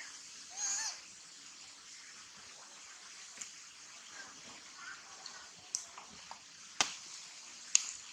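A monkey gives one short, wavering squeal about half a second in, over a steady hiss. Three sharp clicks or taps follow near the end.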